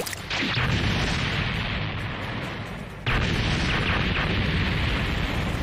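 Cartoon explosion sound effects. A blast goes off just after the start and rumbles down, then a second, louder blast comes about three seconds in and keeps rumbling.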